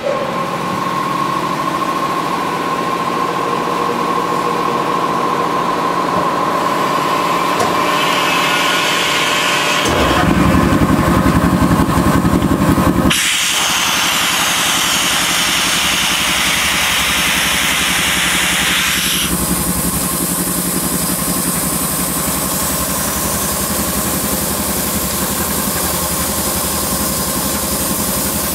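Industrial laminating machine starting up and running, with a steady hum and a held whine. Near the middle a louder low rumble lasts about three seconds, followed by several seconds of hissing before the machine settles back to steady running.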